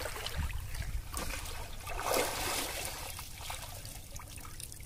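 Pond water trickling and dripping as someone wades in the shallows and lifts a line out of the water, with a few soft splashes about one and two seconds in.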